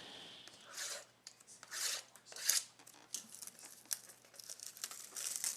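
Packaging being torn and crinkled by hand, a few soft rips and rustles with small clicks.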